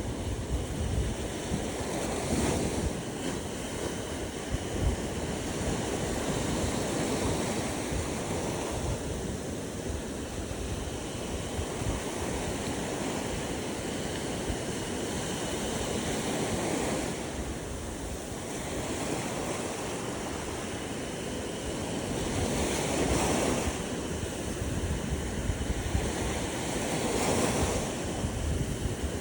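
Ocean surf washing onto a beach, several waves swelling and falling away in turn, with wind rumbling on the microphone.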